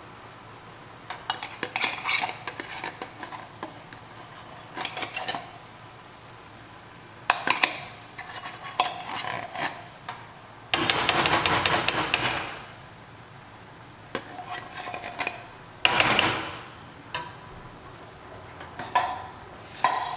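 Metal fork scraping and clinking against a tin can and a frying pan as thick condensed cream of mushroom soup is scooped out, in short bursts. A longer, louder scrape comes about eleven seconds in, and another about sixteen seconds in.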